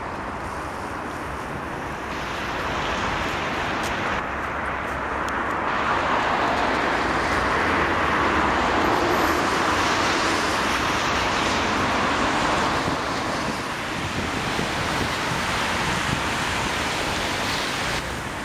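Heavy city traffic on a wide multi-lane road: a steady wash of tyre and engine noise from many cars. It grows louder a couple of seconds in, stays up for several seconds, then eases off.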